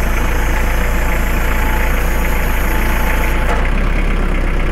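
Kubota MX4700 tractor's four-cylinder diesel engine running steadily while the grapple is opened through the third-function hydraulic valve. About three and a half seconds in, a high hiss stops and the engine note shifts slightly lower.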